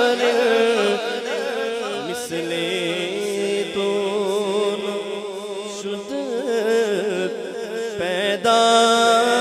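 A man's solo voice chanting a naat, an Urdu devotional poem, into a microphone over a sound system. The notes waver and bend in ornamented runs, and a louder held note comes near the end.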